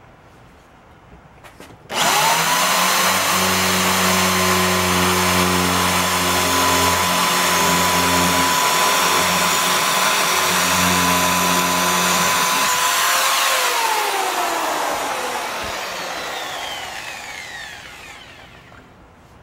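Ryobi D620H 6.2-amp corded hammer drill starting suddenly about two seconds in and running at a steady high whine while drilling into a concrete block, then winding down with a falling pitch after the trigger is released. By the owner's account its hammer action is not engaging, so it is only drilling.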